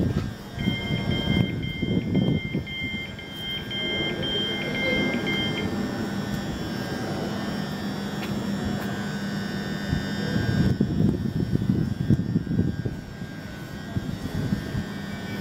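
Class 379 Electrostar electric train drawing into the platform and coming to a stand, its steady traction hum cutting out about ten and a half seconds in, with wind gusting on the microphone. A repeating two-tone beep sounds for the first five seconds or so.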